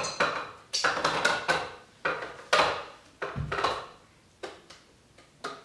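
A metal utensil clinking and knocking against a stainless-steel mixing bowl as coconut milk is scooped into it and stirred: a string of about a dozen separate knocks, each ringing briefly, fewer and fainter toward the end.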